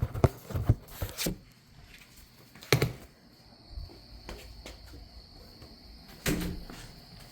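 A door and things being handled, giving several knocks and clunks, the loudest near the start and about three and six seconds in. Under them, crickets chirr steadily on one high note.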